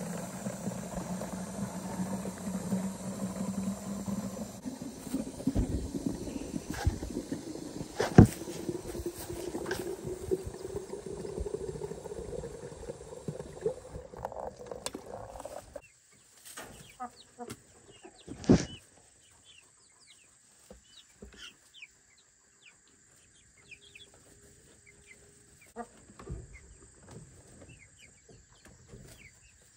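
Water from a yard hydrant pouring into a plastic poultry waterer, the pitch rising steadily as it fills, cut off about sixteen seconds in. A sharp knock follows a couple of seconds later, then faint chicken chirps.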